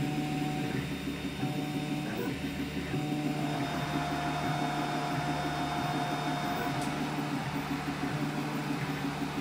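FDM 3D printer printing a PLA calibration cube: its stepper motors whir in steady tones that switch pitch every second or so as the print head changes direction at the cube's corners, over the steady hiss of the cooling fans.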